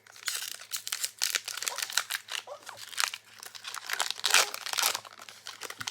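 Foil wrapper of a Pokémon trading card booster pack crinkling as it is handled and opened: a dense, irregular run of crackles.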